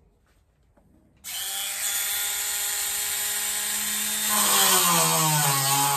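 Battery-powered Dremel rotary tool with a small cutting disc starting up about a second in with a steady high whine. About four seconds in it gets louder and drops in pitch as the disc cuts into the tailgate's sheet steel.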